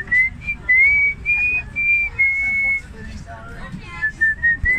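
A person whistling a tune: about half a dozen clear notes, some held for half a second, then a pause of about a second before the whistled notes resume near the end.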